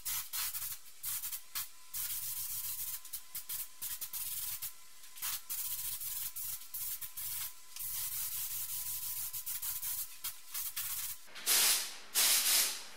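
Compressed-air paint spray gun hissing in many short bursts as black base coat is sprayed onto a steel fuel tank, with two longer, louder bursts near the end.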